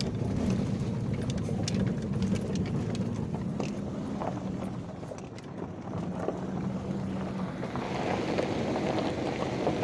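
Car engine running steadily as it climbs a rough dirt mountain track, heard from inside the cabin, with scattered clicks and rattles from the track under the tyres.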